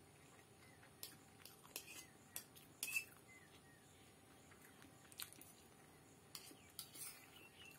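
Metal fork clinking and scraping against a plate while twirling egg chow mein noodles: faint, irregular clicks, some with a short ring, the loudest about three seconds in.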